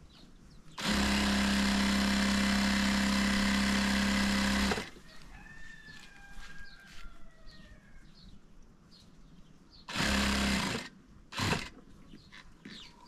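Electric sewing machine running at a steady speed for about four seconds, then a second short run of under a second, followed by a brief spurt.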